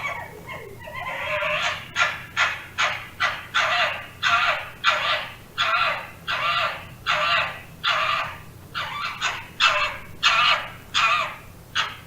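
Fox giving a rapid series of short, harsh calls, roughly two a second, each dropping in pitch at its end.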